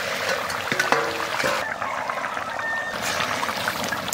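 Chicken curry sizzling and spitting in a steel kadai as it is stirred with a spatula, with a few metal clinks about a second in as the lid comes off.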